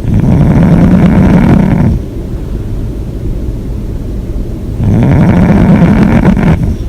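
A person snoring loudly with the mouth open: two long, fluttering snores of about two seconds each, roughly three seconds apart.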